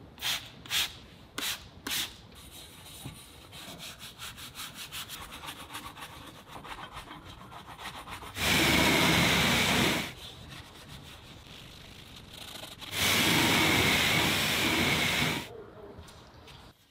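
A few quick squirts of a spray bottle, then a brush scrubbing the exhaust tips in quick rhythmic strokes. A pressure washer then sprays in two long blasts with a faint steady whine, the first starting about halfway through, rinsing the tips.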